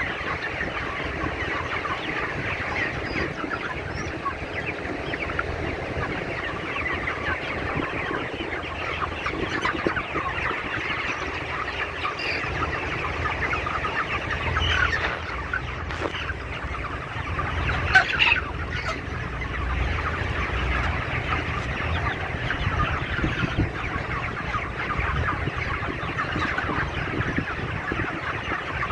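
A large flock of 35-day-old chickens on a poultry farm, clucking and cheeping in a dense, continuous overlapping chatter over a low rumble, with one louder call standing out about two-thirds of the way through.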